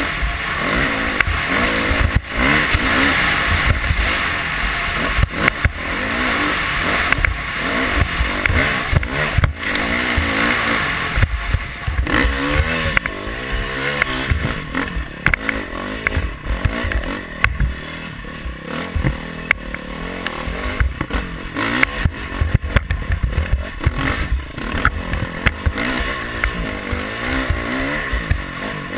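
Dirt bike engine revving up and down as the rider works the throttle on a sandy trail, with frequent knocks and clatter from the bumps and a heavy low rumble of wind and vibration on the bike-mounted microphone.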